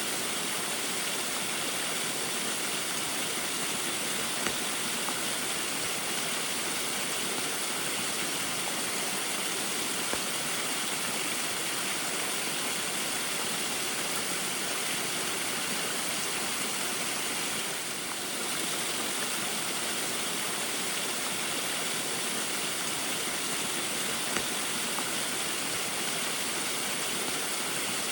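Small waterfall pouring steadily in the rain, an even rushing hiss that dips briefly about eighteen seconds in.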